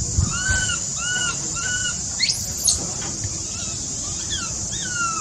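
Infant macaque squealing: three short, arched, high squeals in quick succession, a higher rising squeal near the middle, then a few falling calls near the end, over a steady high hiss.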